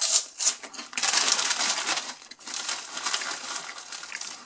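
Foil-lined plastic snack bag crinkling and rustling as a hand rummages inside it for the snack fries, with brief louder crackles in the first half-second and a busy stretch of crackling from about one second in.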